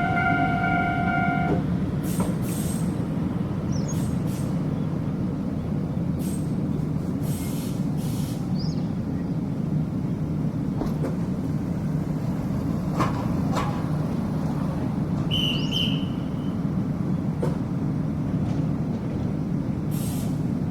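An Iyotetsu Takahama Line train at the level crossing, making a steady low rumble broken by short hissing bursts about two seconds in, around seven seconds and near the end. The crossing's warning bell stops ringing about a second and a half in and starts ringing again right at the end.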